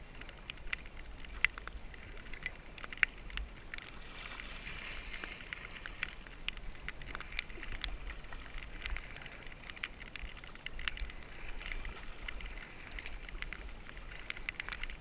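Double-bladed kayak paddle working the water: scattered drips and small splashes from the blades, with a steady watery hiss. Low wind rumble on the microphone underneath.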